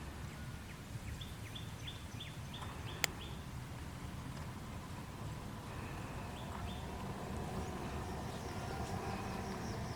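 A bird calling in quick runs of short, high, falling chirps, about four a second, first for about two seconds and again briefly midway, over a steady low rumble. A single sharp click comes about three seconds in.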